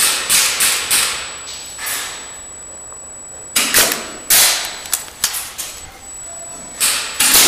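Airsoft gunfire in a large warehouse hall: sharp cracks and snaps in several irregular bursts, each with a short echo, loudest about four seconds in.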